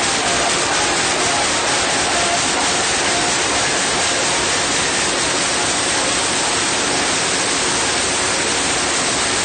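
Loud electronic dance music from a DJ set in a nightclub, mixed with the crowd and recorded so overloaded that it comes through as a steady, distorted wash of noise with no clear beat.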